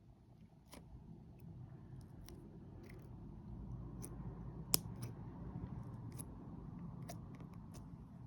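Slime being squeezed and worked by hand, its trapped air bubbles bursting in about a dozen sharp, irregular pops and clicks over a low, continuous squishing. The loudest pop comes a little past the middle.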